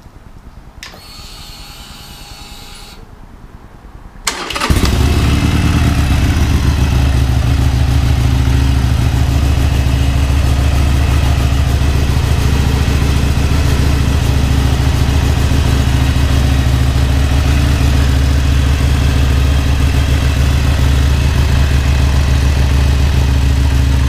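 Harley-Davidson Sportster Iron 883's air-cooled V-twin starting: a brief crank about four seconds in, then it catches and idles steadily.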